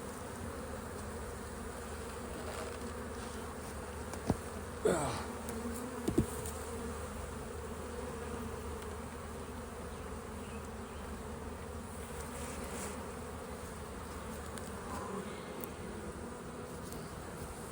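Honeybee colony buzzing steadily around an open hive, with a few sharp knocks about four to six seconds in and a buzz that falls in pitch about five seconds in.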